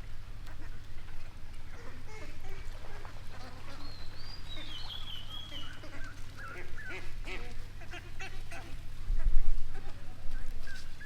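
Waterfowl calling over and over in short honking calls, with a higher warbling bird call about four seconds in and a low thump about nine seconds in.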